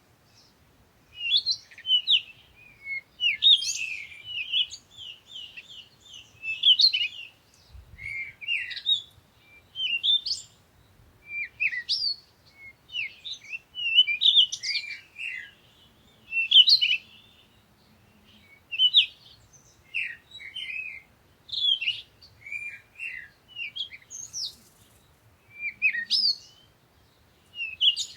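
Birds chirping and singing in short, quick, high-pitched phrases that follow one another every second or two.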